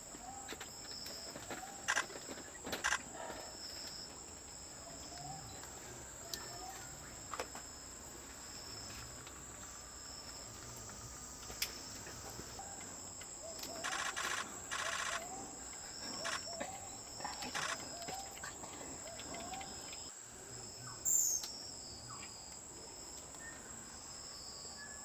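Forest ambience: a steady high insect drone, with many short rising bird notes and a few sharp calls. About midway there is a brief rattling, pulsed call.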